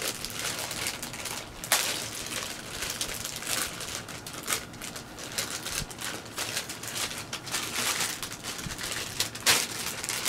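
Clear plastic packaging bag crinkling and crackling as it is handled and pulled open, with a string of sharp little crackles. There are two louder snaps, one about two seconds in and one near the end.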